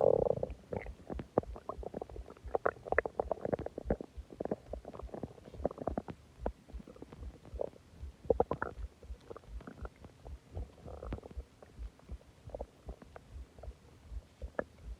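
A person's stomach rumbling and gurgling, digesting a large meal and a soda, in an irregular run of short pops and bubbling sounds. A louder gurgle comes right at the start, they crowd together a couple of seconds in, and they thin out toward the end.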